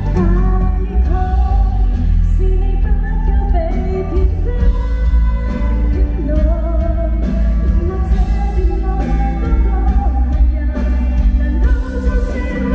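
Female singer performing a Cantonese pop ballad live with a band: a sung melody over keyboard chords, drums and heavy bass.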